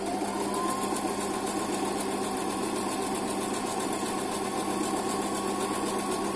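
Electric sewing machine running steadily at an even speed, stitching a straight seam through fabric.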